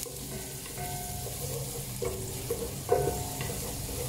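Chopped onion sizzling in hot oil in a stainless steel pot, stirred with a wooden spatula that scrapes round the metal, with a louder knock about three seconds in.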